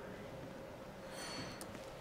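Quiet room tone with a few faint handling clicks and a light rustle about halfway through, from hands and snips working on the gimbal's cable ties.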